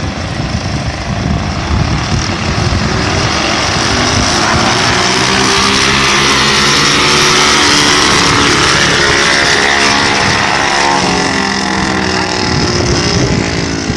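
Small minibike engines running hard as two minibikes race down a drag strip: a steady engine drone whose pitch wavers slightly.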